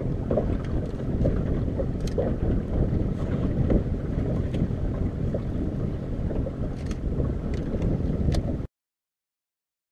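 Wind rumbling on the microphone, with water rushing past the hull of a small sailing boat under way and a few faint clicks. The sound cuts off suddenly near the end.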